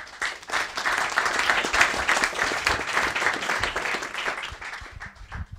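Audience applauding at the end of a talk; the clapping builds at once, holds steady, then thins out and stops near the end.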